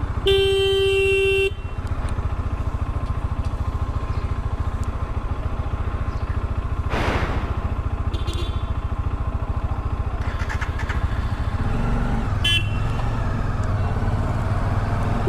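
Bajaj Dominar 400's single-cylinder engine running as the motorcycle rides off along a city road. A horn sounds for about a second near the start, a vehicle rushes past about halfway through, and there is a short toot near the end as the engine picks up.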